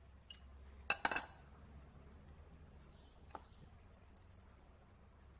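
A quick cluster of sharp metallic clinks about a second in, from steel wrenches and the unscrewed hydraulic relief valve cartridge being handled and set down on the bench, then one faint click later. A steady high-pitched tone runs underneath.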